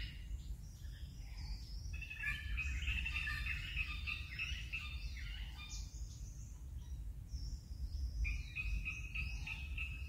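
Birds chirping and calling in quick, irregular short notes, over a steady low rumble.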